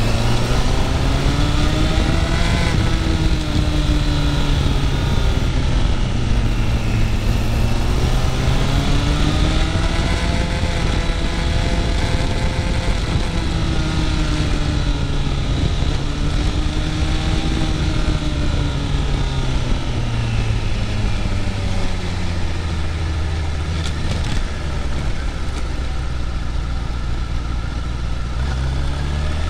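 Motorcycle engine running on the move, its pitch rising and falling again and again with the throttle. Near the end it settles low and steady, then picks up again. Throughout there is a steady rush of wind and road noise.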